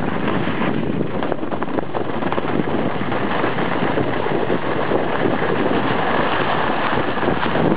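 Steady rushing wind noise on the microphone, with skis sliding and scraping over packed snow during a downhill run.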